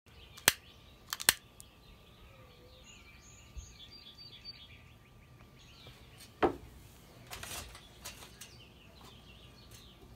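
Two sharp clicks near the start and birds chirping. A little past the middle comes one solid thump, a metal chimney starter set down on the charcoal-filled smoker bowl, followed by light metallic clatter.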